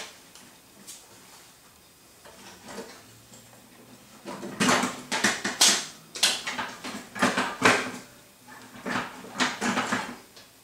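Metal side panel of a Dell Precision T7500 workstation case being worked free after its latch is pulled back. It is fairly quiet at first, then from about halfway through comes a run of clacks and rattles as the panel shifts and slides off the case.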